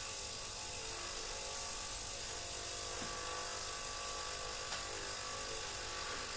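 Small ultrasonic cleaning bath running with airbrush parts in the cleaning liquid: a steady electric buzz over a hiss, without change.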